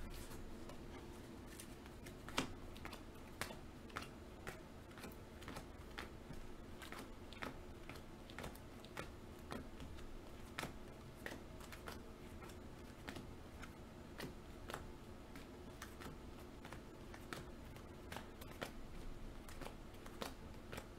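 Faint, irregular clicks and taps, about one or two a second, over a low steady hum.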